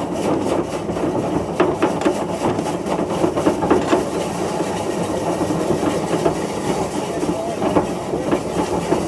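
An engine running steadily, with a fast, continuous clatter over a low, even drone.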